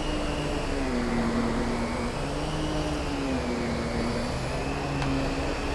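Miele Complete C3 Brilliant canister vacuum running, its electric powerhead pushed back and forth over carpet as it picks up pet hair. The steady motor hum sags and rises slightly in pitch every second or two.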